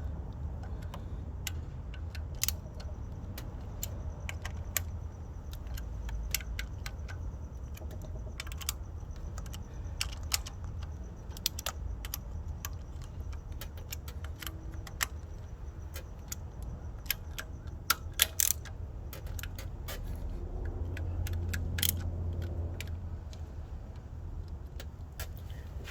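Ratchet with a T30 Torx bit clicking in short irregular spells as the coil-pack screws are snugged down with a final turn, with light metallic clinks of the tool, over a steady low hum.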